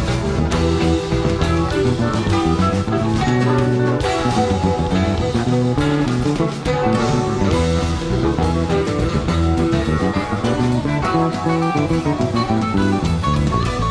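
Background music: guitar-led rock with bass and drums playing steadily.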